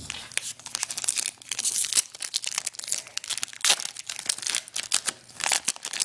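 A Wacky Packages sticker pack's wrapper being torn open and crinkled by hand: a run of irregular crackles and rips, with a few louder ones about two, three and a half, and five and a half seconds in.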